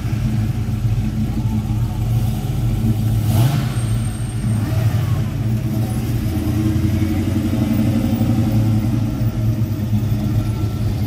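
Classic cars' engines running at low speed with a low exhaust rumble; one revs briefly about three and a half seconds in.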